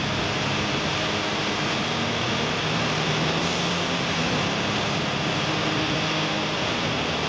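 Brazing torch burning with a steady hiss while a copper refrigerant line is brazed onto a replacement scroll compressor.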